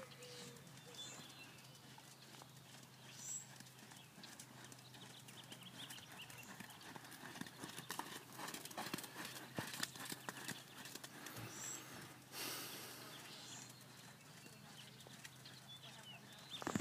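Horse's hoofbeats thudding in the soft sand of an arena, loudest in the middle as the horse passes close. A brief rush of noise comes a little after the middle.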